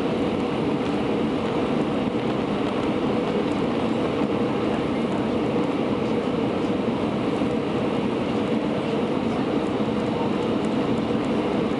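Steady cabin noise inside an Airbus A320 on approach to land: engine and airflow noise heard through the fuselage as an even, unbroken low rush.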